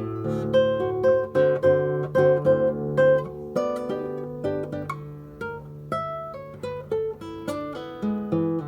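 Solo acoustic guitar playing a choro: quick plucked melody notes over a moving bass line, with a string of rapidly repeated high notes in the first few seconds.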